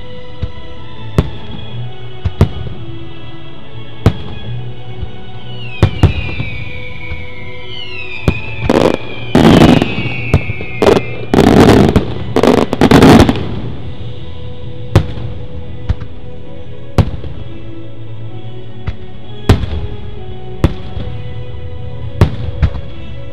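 Fireworks bursting, with sharp single bangs every second or two and a run of longer, louder bursts about nine to thirteen seconds in. A few falling whistles sound around the middle, and music plays throughout.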